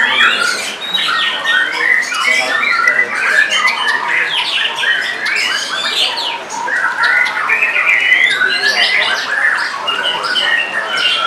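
White-rumped shama singing a continuous, varied song of rapid rising and falling whistled sweeps, interspersed with harsh chattering notes and sharp clicks.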